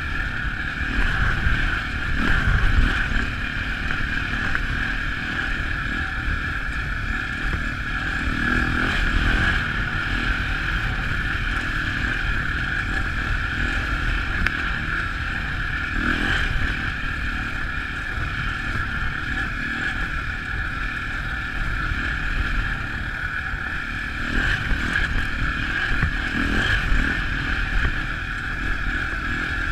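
KTM dirt bike engine running steadily as the bike rides along a gravel track, with wind rumble on the handlebar-mounted action camera.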